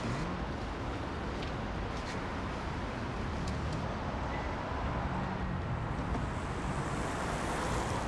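Steady outdoor street ambience: a low, even traffic rumble, with a couple of faint clicks.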